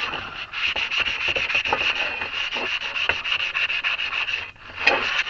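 Brake rotor surface being scuffed by hand to take off its glaze: rapid back-and-forth rubbing strokes, about eight a second, with a short break near the end.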